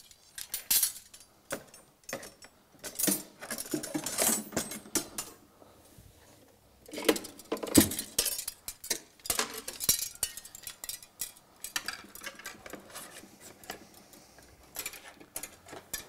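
Steel paintless dent repair rods clinking and rattling against one another and against the tool cart's brackets as they are handled and hung back in place. The clinks come in irregular clusters, the loudest about seven to eight seconds in.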